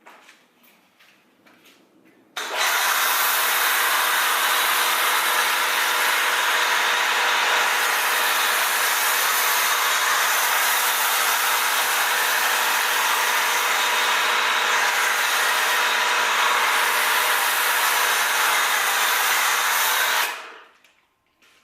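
Electric pressure washer (AR Blue AR630TSS) starting up as the trigger is pulled, about two seconds in, and spraying steadily through a foam cannon: a loud hiss of the spray over the motor's steady hum. It stops abruptly near the end as the trigger is released and the total stop system shuts the motor off.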